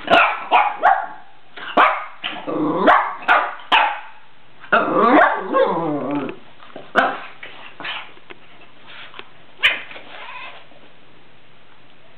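Pekingese dog barking: a run of short, high yaps, a longer wavering call about five seconds in, then a few single barks spaced out toward the end.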